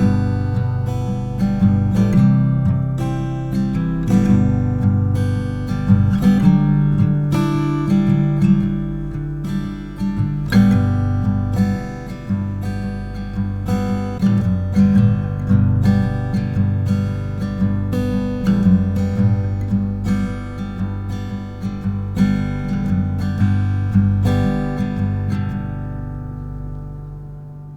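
Background music: acoustic guitar strummed in a steady rhythm, fading out near the end.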